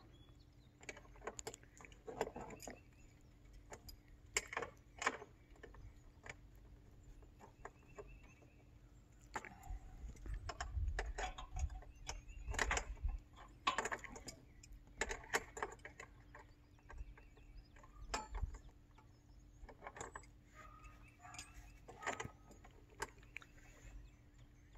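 Light, irregular clicks and metallic clinks of hand tools and metal mounting hardware as a solar street light is fastened to its wall bracket. A low rumble on the microphone rises for a few seconds in the middle.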